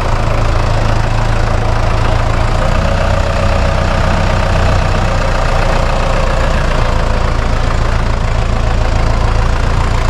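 Farm tractor's diesel engine running steadily at a constant speed close by.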